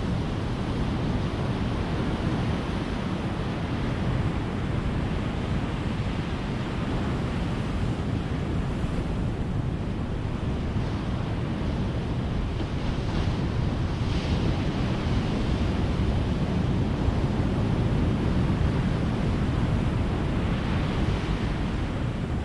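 Ocean surf: waves breaking and washing ashore in a continuous rushing wash that swells a little in the second half.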